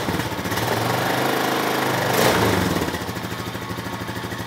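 Honda Rancher 420 ATV's single-cylinder four-stroke engine idling, then revved up once to a peak about two seconds in before it settles back to idle.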